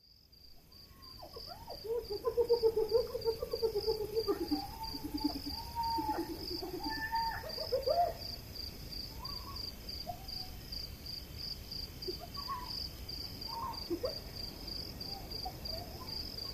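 Savanna dawn ambience fading in: a steady, evenly pulsing insect chirp with birds calling over it. A run of low repeated calls is loudest in the first half, and scattered higher single calls follow later.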